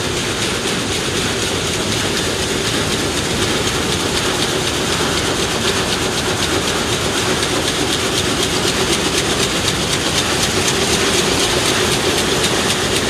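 Rapier weaving looms running in a weaving shed: a loud, continuous fast clatter of the looms' beating and picking, over a steady mechanical hum.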